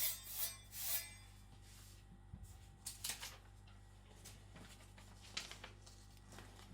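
Edge of a freshly sharpened Chinese cleaver being tested: several short, crisp slicing strokes a second or more apart, the edge cutting cleanly.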